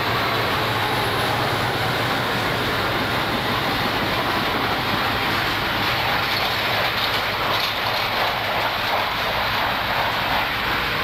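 Passenger train coaches rolling steadily past, their wheels running on the rails with an even rumble. At the very start a low engine drone from the passing diesel fades away.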